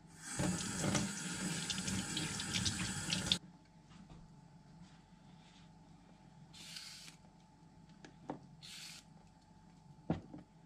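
Kitchen tap running for about three seconds, rinsing soil off a fresh Chinese yam, then turned off abruptly. Afterwards two short scrapes and a sharp knock near the end.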